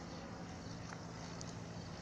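Outdoor street ambience: a steady low hum with a couple of faint ticks.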